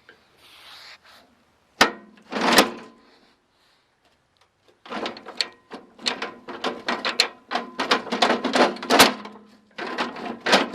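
Metal parts of an old Sears Craftsman riding mower being worked by hand: two sharp clanks, then a rapid, uneven run of metallic clacks and rattles from the moving linkages.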